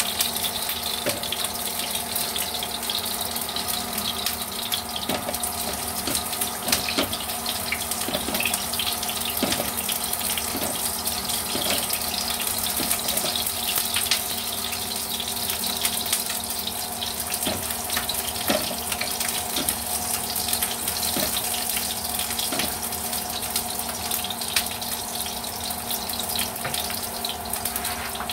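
Onion and garlic sizzling in hot oil in a wok: a steady hiss with scattered crackles and pops.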